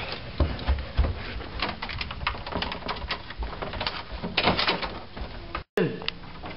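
Hurried footsteps on a carpeted floor, heard as irregular dull thuds a few times a second, mixed with the rustle and knocks of a handheld camera being jostled as it moves. The sound breaks off abruptly near the end.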